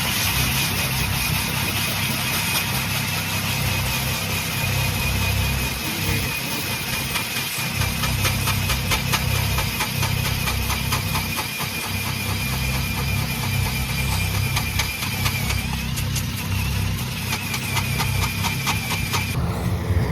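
A vehicle engine running steadily, with a steady high whine and fine even ticking over the low drone, and a slight rise in the whine about three-quarters of the way through.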